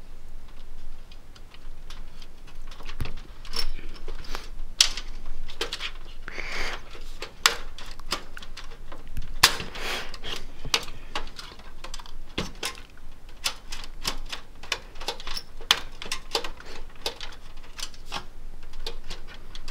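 Irregular clicks, taps and light rattles of metal and plastic as hands work the old graphics card loose from its slot inside a desktop computer case.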